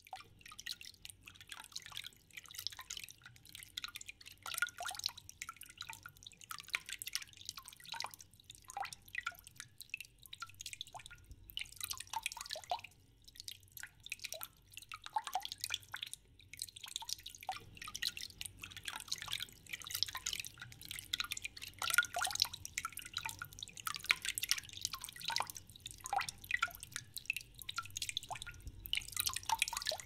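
Water dripping: an irregular patter of many drops and small splashes, some with a short pitched plink, growing busier about halfway through.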